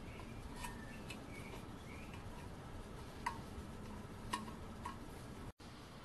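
Light metallic clicks and taps, about five scattered ones, as small brass parts of a model steam engine kit are handled and fitted onto its shaft by hand.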